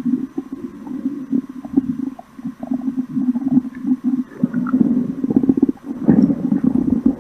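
A human stomach grumbling in long, uneven rumbles, with short breaks about two seconds in and just before six seconds.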